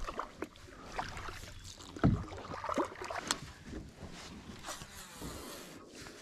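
Water lapping and trickling along a plastic sit-on-top kayak as it glides, with a hollow knock on the hull about two seconds in and scattered small clicks from gear being handled.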